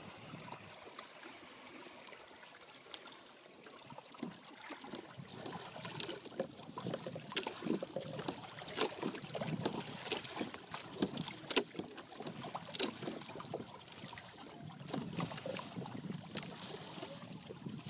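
Water lapping and splashing against the hulls of a Hobie Adventure Island sailing kayak-trimaran under way, with a run of short sharp slaps in the middle.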